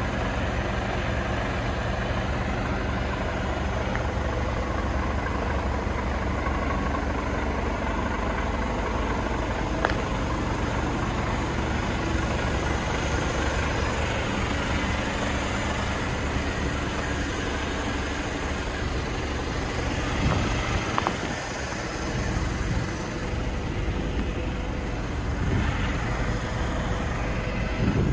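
Mercedes-Benz Actros 2546L truck's straight-six diesel engine idling steadily.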